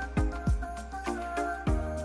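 Background music: deep electronic kick drum beats under a steady bass line and held synth chords with a bright melody on top.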